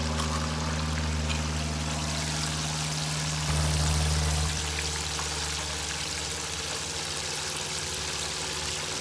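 Hot oil sizzling steadily in a Hamilton Beach professional-style deep fryer as catfish fillets fry, over a steady low hum. It gets a little louder for about a second near the middle.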